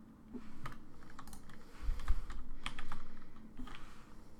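Typing on a computer keyboard: a run of irregular key clicks entering a command, with a low thud about halfway through.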